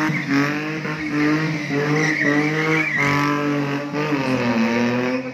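Small pickup truck's engine revving hard, its pitch rising and falling again and again, with tyres squealing.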